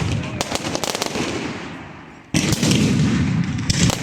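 Fireworks going off. Crackling from a burst fades over the first two seconds, then another loud boom comes a little past halfway, followed by dense crackling.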